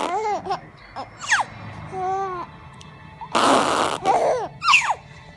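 A baby cooing and squealing in short calls, some arching and some sliding down in pitch. A little past the middle comes a loud burst of rushing, breathy noise lasting under a second.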